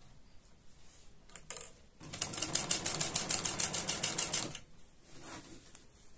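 Domestic sewing machine stitching in one quick, even run of about two and a half seconds, starting about two seconds in. A short, sharp noise comes just before it.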